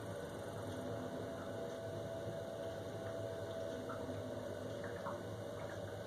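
Worcester Bosch 29CDi Classic combi boiler running with a steady low hum and a faint thin whine that starts about a second in; no rumble is heard.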